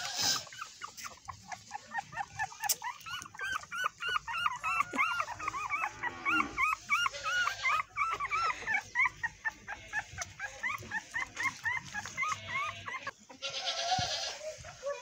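Newborn puppies whimpering and squealing in a rapid string of short, high, arching cries, several a second. A short rustle comes near the end.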